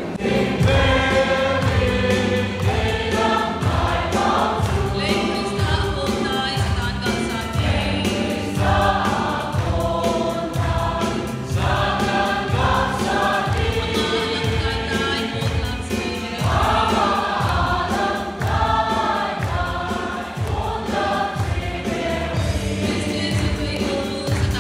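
Christian worship music: a group of voices singing a gospel song over a steady drum and bass beat of about two strokes a second.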